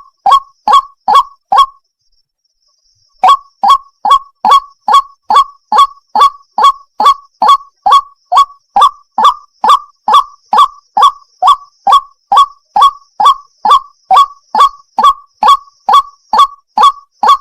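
White-breasted waterhen calling: a long run of short, loud, evenly spaced notes, about two and a half a second, with a pause of about a second and a half near the start. This is the female's call to a male.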